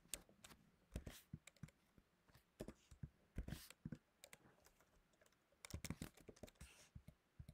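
Faint, irregular keystrokes on a computer keyboard as short commands are typed, in small clusters with pauses between.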